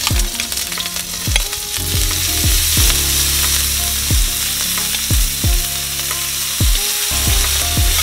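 Limpets frying in garlic butter in a hot, thin frying pan, sizzling steadily, with a low beat of background music underneath.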